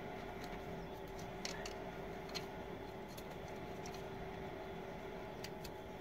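Faint small clicks and taps of hands working at a ZAZ Slavuta's ignition distributor and plug leads, a few scattered over several seconds, over a steady low background hum; the engine is not running.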